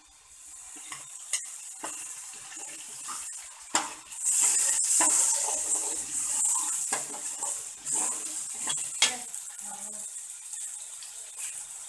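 A slotted metal spatula stirs and scrapes through chopped tomatoes and potatoes frying in oil in an aluminium kadhai, clinking against the pan now and then. Under it the oil sizzles, growing louder about four seconds in.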